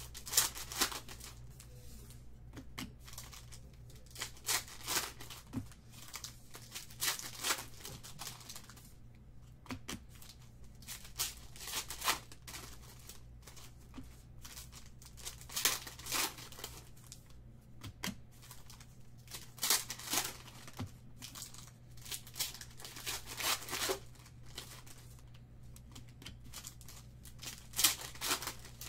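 Foil trading-card pack wrappers being torn open and crinkled by hand, in repeated short bursts, over a steady low hum.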